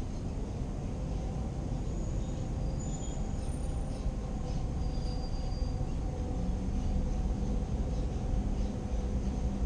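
Steady low rumble of distant road traffic, with a low steady hum joining about six and a half seconds in.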